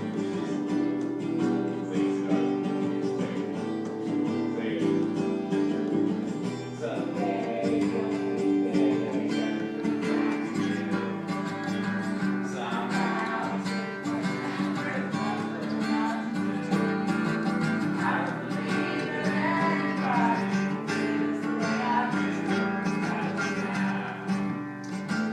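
Music led by acoustic guitar strumming, with a singing voice at times.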